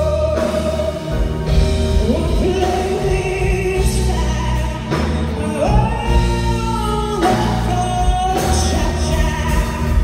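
Live band music: a woman's voice sings long, sliding held notes over keyboard and electric bass.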